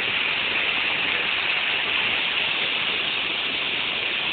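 Waterfall: water falling and rushing in a loud, steady, unbroken hiss.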